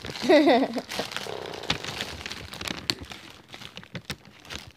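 Clear plastic wrapping crinkling and crackling as it is handled and pulled at, with a brief wavering voice-like sound near the start.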